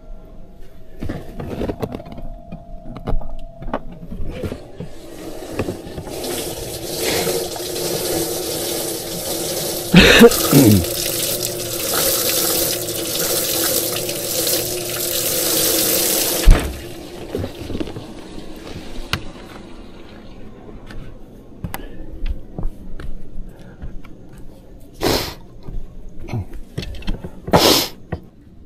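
Water splashing steadily into a bass boat's live well for about eleven seconds, with a sharp knock about halfway through, then cutting off abruptly with a thump. A couple of short clicks follow near the end.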